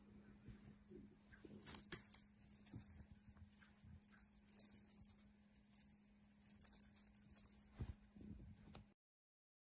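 Faint jingling of a small bell in a series of short shakes, with a soft knock or two and a low steady hum underneath that stops near the end.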